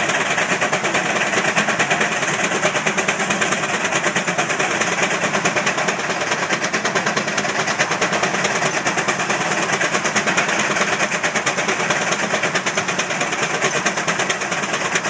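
Steam engines working hard, their exhaust chuffing in a rapid, even rhythm of several beats a second; the strong exhaust blast is throwing columns of sparks from the smokestacks.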